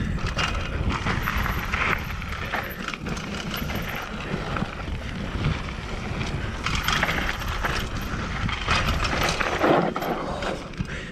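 Mountain bike riding down a dry, dusty dirt trail: tyres running over loose dirt with a constant low rumble, the bike rattling over bumps. There are several louder hissing surges of tyre noise, at about two seconds, seven seconds and just before the end.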